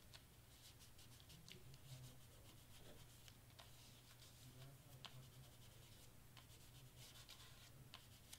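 Near silence: faint, scattered clicks and rustles of cardstock and tape being handled, over a low steady hum.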